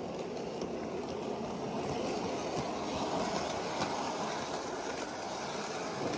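G-scale electric model train, a Thomas the Tank Engine locomotive pulling coaches and open trucks, running on track laid on a wooden floor: a steady rumble of motor and rolling wheels with faint clicking of the wheels over the track.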